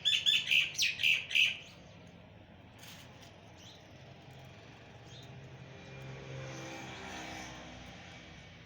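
A quick run of loud, high chirping bird calls lasting about a second and a half, then a faint background with a low hum that swells and fades again about six to eight seconds in, like a passing vehicle.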